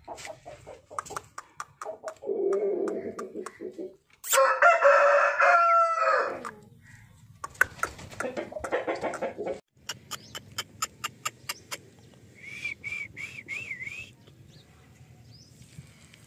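Aseel rooster crowing once, a loud crow of about two seconds starting about four seconds in that falls in pitch at its end, with lower clucking calls before and after it and scattered sharp clicks.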